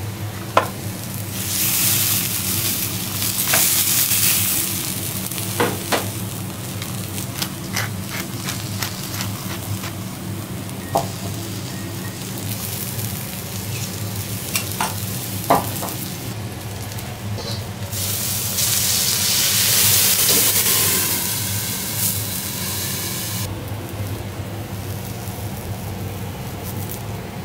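Halved lobster sizzling on a hot steel teppanyaki griddle, with two long swells of louder sizzling as liquid is poured onto the plate, and sharp clicks of a metal spatula against the steel. A steady low hum runs underneath, and the sizzling drops back near the end.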